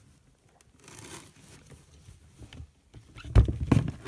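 Hand rummaging through fresh produce in a cardboard box: faint rustling at first, then from about three seconds in a quick run of knocks and bumps as the vegetables are shifted.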